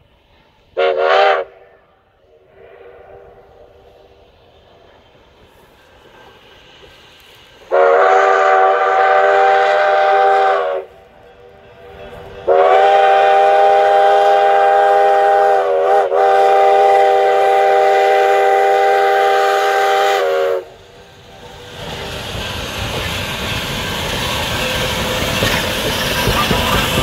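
A K-36 narrow-gauge steam locomotive's chime whistle sounds one short toot, then two long blasts, the second with a brief wobble in pitch partway through; two long blasts is the signal to proceed. After that comes the locomotive's hiss of steam and exhaust, growing louder as it pulls away and draws near.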